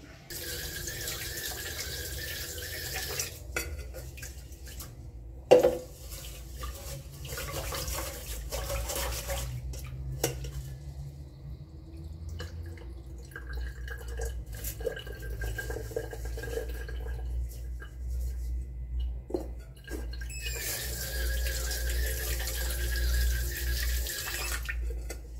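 Tap water running into an aluminium rice-cooker pot to rinse rice. The flow stops after about three seconds and runs again near the end. In between, the rice and water are swished and the rinse water is tipped out onto a floor drain, with one sharp knock about five seconds in.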